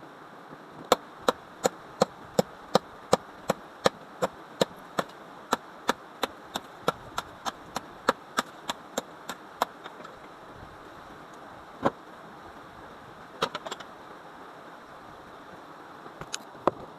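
Wood being chopped with a hand tool: a quick, even run of sharp strikes, about three a second, for most of ten seconds, then a few single strikes and a short cluster near the end.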